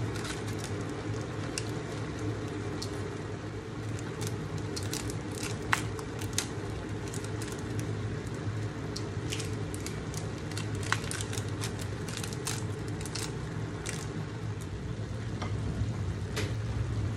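Stir-fry vegetables and chicken sizzling in a frying pan, with scattered sharp pops and crackles over a steady low hum.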